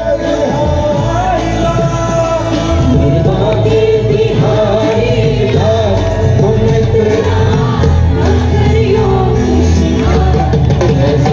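Live band music played loud through a PA system, with singing over it and the bass growing heavier about three seconds in.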